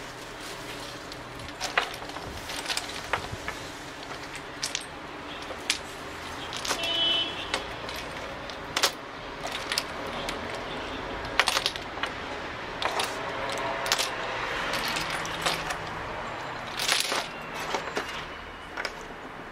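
Small black cylindrical lottery tokens clicking and clacking against each other and the tabletop as they are taken by hand from a cloth bag and set down in a pile, in irregular scattered clicks.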